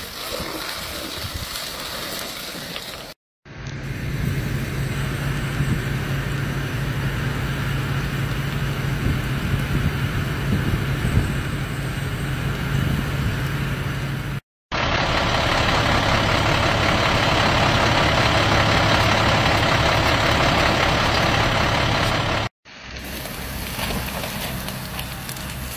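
Fire engine's diesel running steadily, with a low hum underneath. The middle stretch carries a louder rushing hiss, and three brief silent gaps break up the sound.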